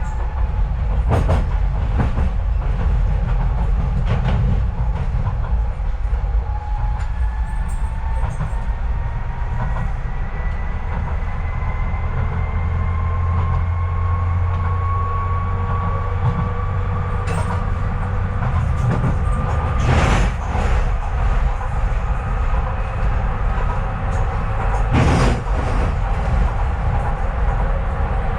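Docklands Light Railway train running, heard from inside the carriage: a steady low rumble with an electric motor whine that slowly rises in pitch as the train speeds up. A few sharp clicks of the wheels over rail joints, the loudest about two-thirds of the way in and again near the end.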